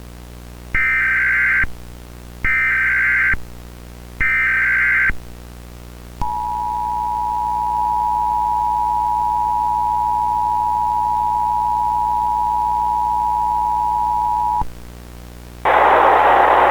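Emergency Alert System signal: three short bursts of warbling digital header tones, each about a second long, then the steady two-tone attention signal held for about eight seconds, over a faint steady buzz. It opens an Emergency Action Notification.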